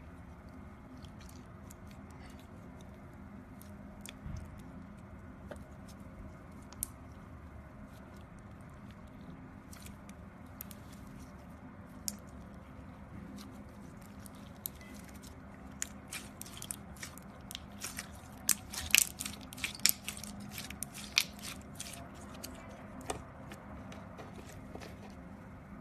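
Slime being worked and squished, giving off sharp crackling clicks and pops. They come scattered at first and grow dense and louder about two-thirds of the way through.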